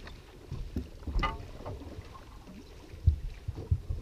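Several dull knocks and thumps on a fishing boat's deck and hull as the anglers move about and handle their gear, over a low rumble of wind on the microphone. One thump comes a little over a second in, and three more come close together near the end.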